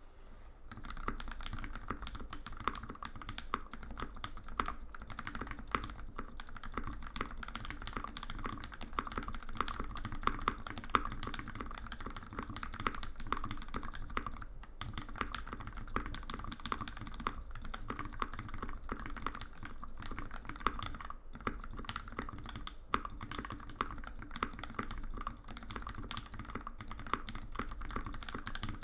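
Fast continuous typing on a custom mechanical keyboard: linear Gateron Giant switches lubed with Krytox 205g0/206g0 in a polycarbonate case with a carbon fiber plate and no dampening, a steady stream of keystrokes with brief pauses now and then.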